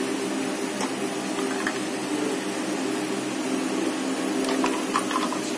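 Steady hum of an electric fan motor filling the kitchen, with a few light clinks near the end.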